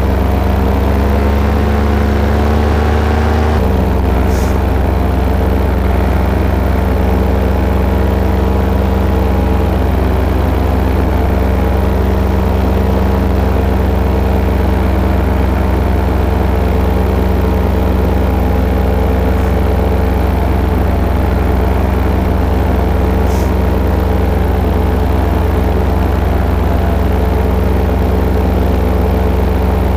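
Paramotor's two-stroke engine and propeller running steadily. The engine note changes once, about three and a half seconds in, as the throttle is adjusted, then holds even.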